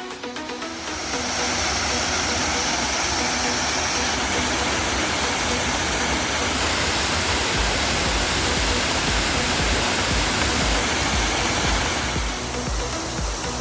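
Waterfall rushing loudly and steadily, taking over as background music fades out in the first second, with an uneven low rumble from about halfway.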